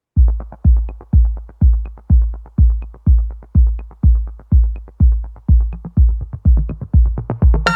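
Electronic background music: a deep kick drum beating steadily about twice a second, with faint high ticks, and synth chords coming in near the end.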